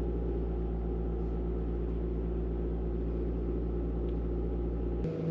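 Volkswagen car engine running steadily with an even hum; about five seconds in its note changes abruptly.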